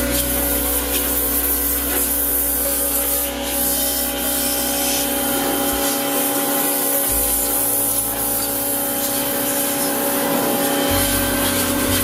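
Pressure washer running steadily with a hum, its high-pressure jet hissing as it sprays water against a steel gate.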